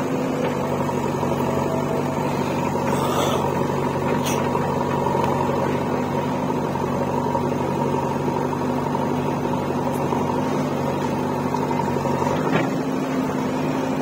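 Diesel engines of a farm tractor and a JCB 3DX backhoe loader running steadily at idle, with a few faint clicks.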